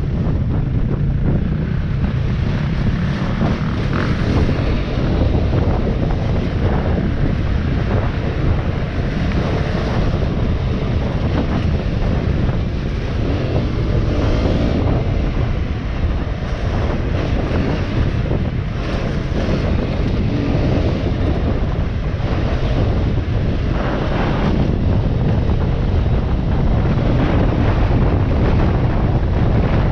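Off-road motorbike running along a rough dirt track, its engine mixed with heavy wind buffeting on the microphone and frequent knocks from the bike going over bumps.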